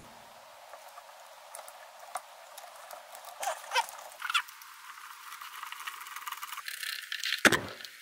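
Light rustling and small clicks of wires and plastic fittings being handled as a switch-and-socket panel is fed through its nut and fitted into a plastic box, with a louder plastic knock near the end.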